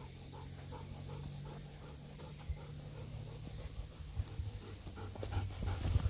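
Golden retriever panting in a quick, even rhythm of about three breaths a second.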